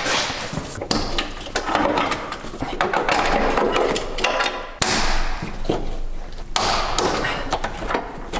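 Irregular knocks, clicks and rustling as wiring and interior parts are handled and pulled about inside a BMW E30 being stripped.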